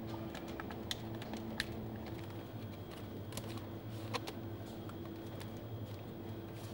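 Supermarket ambience: a steady low hum with a few light clicks and knocks, about one, one and a half and four seconds in, as packs of beef are put on the shelves.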